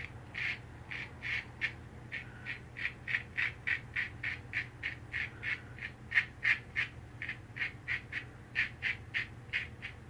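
Circa-1900 Superior lather catcher safety razor rasping through about a day's stubble in short strokes across the grain, about three strokes a second. The razor blade is audibly cutting the whiskers.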